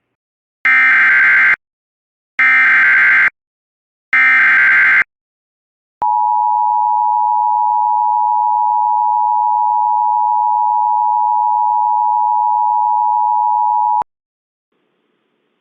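Emergency Alert System header: three separate bursts of SAME digital data, a harsh warbling buzz of about a second each, followed by the EAS attention signal, a steady two-tone sound held for about eight seconds before it cuts off. It marks the start of an emergency alert.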